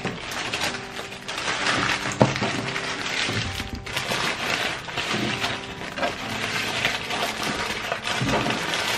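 Paper burger wrappers crinkling and rustling as they are handled and unwrapped, with a sharp click about two seconds in. Quiet background music runs underneath.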